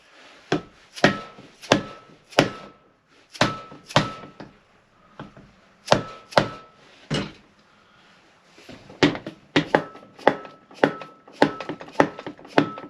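Hammer blows tapping on a motorcycle engine's case to break a stuck part loose, about two dozen irregular knocks, many with a short metallic ring, coming faster in the last few seconds.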